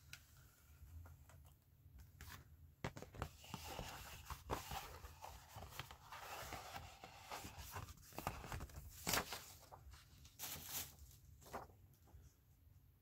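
Paper and cardboard rustling and sliding as sheets and a card backing are pulled out of a mailing envelope and handled, with irregular crinkles and light taps. It starts about three seconds in and dies away shortly before the end.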